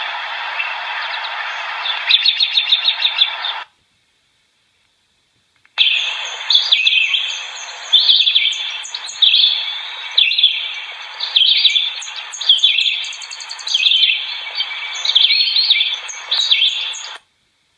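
Songbirds chirping and singing over a steady background hiss. A quick series of chirps runs until about three and a half seconds in, then the sound cuts out for about two seconds. Repeated short song phrases follow and stop abruptly just before the end.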